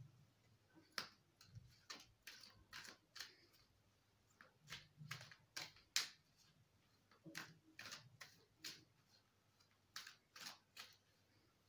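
A deck of tarot cards being shuffled by hand: a quiet, uneven run of crisp card clicks and flicks in short clusters, a few a second, with soft handling thuds.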